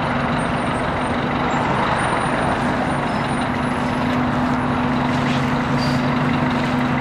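Steady low hum of an idling vehicle engine under a constant wash of street noise.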